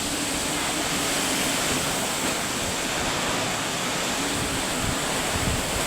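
Heavy rain and wind of a summer storm: a steady, even hiss of pouring rain, with a low, uneven rumble of wind underneath.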